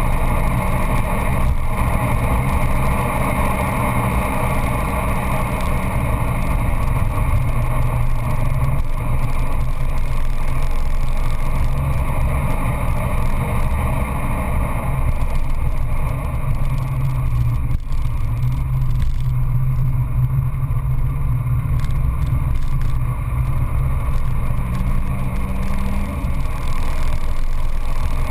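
Peugeot 206 GTI S16's 2.0-litre 16-valve four-cylinder engine pulling hard at speed, heard from inside the cabin with loud tyre and wind noise. There are a couple of brief knocks.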